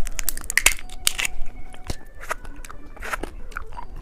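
Candy packaging being handled and torn open, with irregular crinkling and sharp crackles of plastic wrapper.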